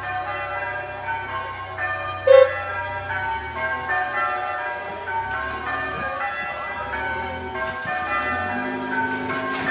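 Bell tones ringing one after another in quick, even succession, like church bells change ringing. A short sharp knock about two seconds in stands out above them.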